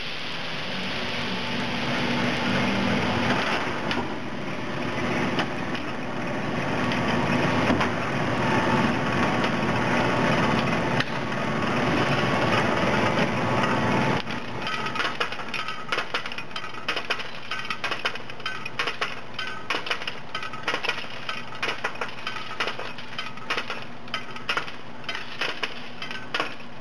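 Powered M5 delinking machine running, stripping .50 BMG cartridges from their metal link belt. A dense, loud metallic clatter fills the first half; from about halfway it turns to a lighter, rapid, even clicking over a steady motor hum.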